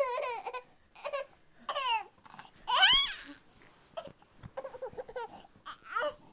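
A baby's voice babbling and crying in short high-pitched bursts, with a loud squeal that rises and falls about three seconds in.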